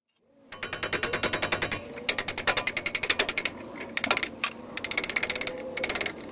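Hand ratchet wrench clicking in quick runs with short pauses between strokes, loosening a fastener on the front suspension during a CV axle removal.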